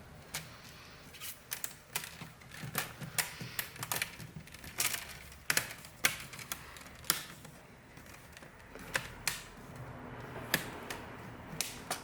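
Light, irregular clicks and taps, about fifteen of them, as a thin plastic laptop screen frame is pressed down into place around the edge of the lid.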